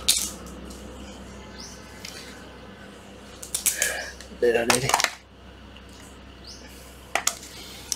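Hard plastic clacks and knocks of cordless power tools being handled and set down on a tiled floor, in a few scattered groups, over a steady low hum.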